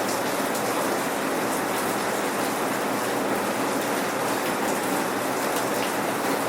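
Steady rain falling, raindrops pattering on surfaces in an even, dense hiss with no thunder.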